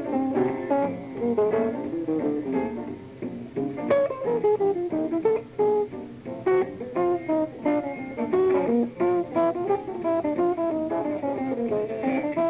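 Live jazz trio of guitar, double bass and piano playing, with the guitar leading in a quick run of plucked single notes.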